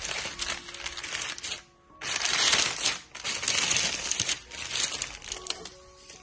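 Kitchen food-preparation noise: a dense run of small clicks and scrapes, breaking off briefly a little under two seconds in, then loudest just after.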